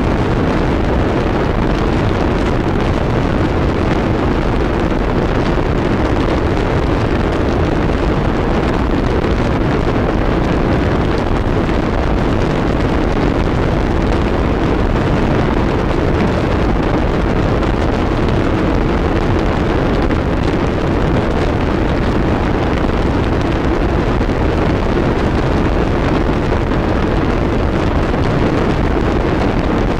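Harsh noise wall: a loud, dense wall of distorted static that does not change, weighted toward the low end, with no pitch or rhythm.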